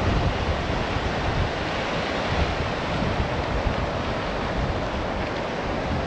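Surf washing onto a rocky beach, a steady rush of waves, with wind buffeting the microphone in low gusts.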